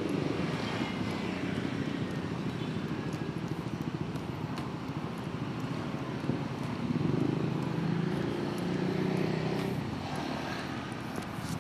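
Road traffic: a steady drone of passing cars and motorcycles, with engine hum swelling louder about seven seconds in and easing off a few seconds later.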